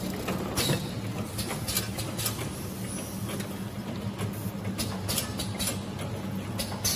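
Automatic can sealing line with its star wheel and conveyor running: a steady machine hum with irregular sharp clicks and clanks from the mechanism and tins.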